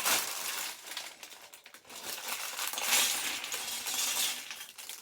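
Plastic Lego pieces clattering and clicking as a hand rummages through a loose pile of bricks, loudest at the start and again about three seconds in.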